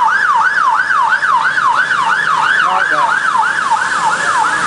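Police car siren on its fast yelp: a loud wail sweeping up and down in pitch about three and a half times a second.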